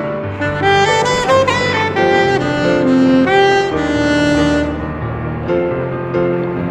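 Background music: a jazz-style melody line over a steady bass.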